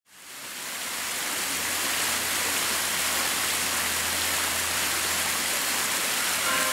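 Steady rain falling, a noise that fades in over the first second. Near the end, bell-like chime music begins over it.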